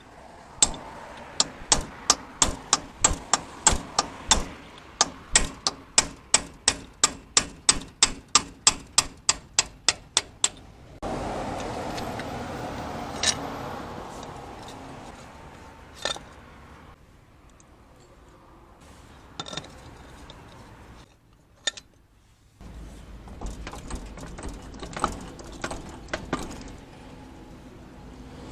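A hammer striking metal in a steady run of sharp blows, about three a second, for some ten seconds. Then comes a few seconds of scraping and shuffling, followed by scattered single knocks and clinks of metal parts being handled.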